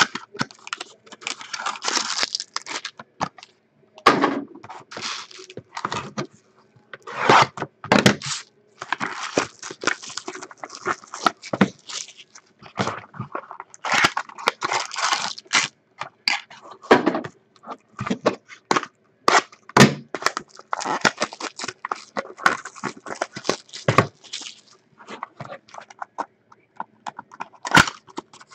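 Trading card packaging being torn open and handled: irregular crinkling and tearing of wrappers, with scattered sharper crackles and clicks.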